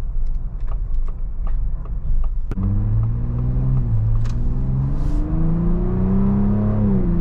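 2023 Ford Bronco Raptor's 3.0-litre twin-turbo EcoBoost V6 exhaust in its loud Baja mode, heard from inside the cabin. It begins as a low rumble with a few light ticks. About two and a half seconds in there is a sharp click, and the engine note then climbs as the truck accelerates, dropping at an upshift of the 10-speed automatic near four seconds and again near the end.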